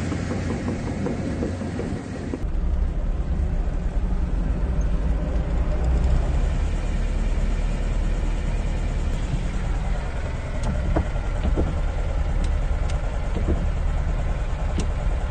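Vehicle engine running with a steady low rumble. A couple of seconds in the sound changes abruptly and becomes deeper and steadier, and a few light clicks come later.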